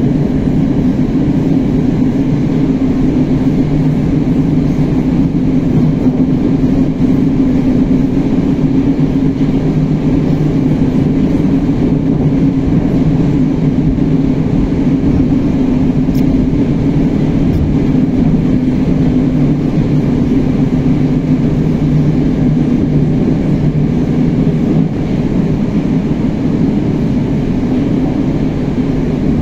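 Moscow Metro 81-765/766/767 'Moskva-2019' train heard from inside the car, running steadily between stations: a loud, even rumble of wheels on rail with a steady low drone.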